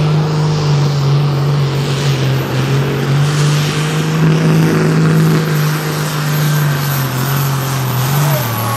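Turbocharged diesel engine of a Pro Stock pulling tractor running hard at high, steady revs under load. Its pitch dips briefly near the end.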